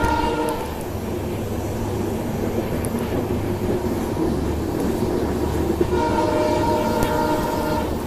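Moving train's steady low running rumble, with the diesel locomotive's horn sounding twice: a blast that ends about half a second in, and another of just over a second around six seconds in.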